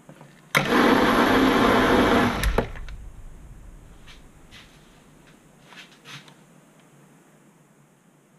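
Proxxon PD 250/e mini lathe running with the lead screw engaged for about two seconds as the single-point threading tool takes a spring pass along the steel thread at final depth. It starts abruptly and stops suddenly, then runs down over about half a second, followed by a few faint clicks.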